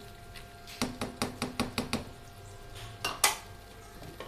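A spoon knocking and scraping against a pan while stirring chicken and green beans: a quick run of about eight knocks in the first half, then two louder knocks about three seconds in.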